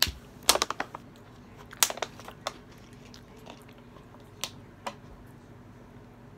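Thin plastic water bottle crackling and clicking as it is handled and drunk from: quick clusters of sharp crackles in the first two and a half seconds, then two more single clicks a little past the middle.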